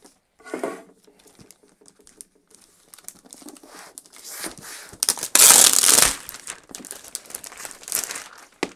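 Clear plastic wrapping crinkled and pulled off a cardboard laptop box, scattered crackles building to a loud tearing rip about five seconds in that lasts under a second.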